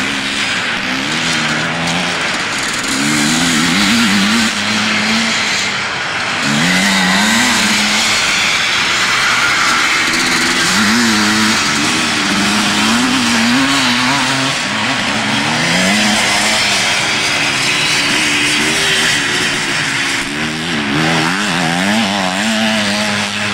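Motocross motorcycle engines revving up and down, their notes rising and falling and at times overlapping as more than one bike runs.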